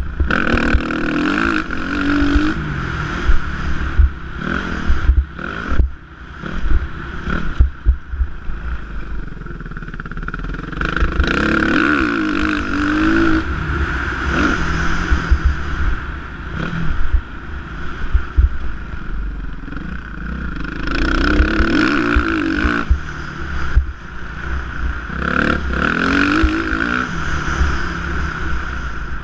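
Suzuki motocross bike's engine revving up and dropping off several times as it is ridden around a dirt track, with wind buffeting the microphone and scattered knocks from the bumps.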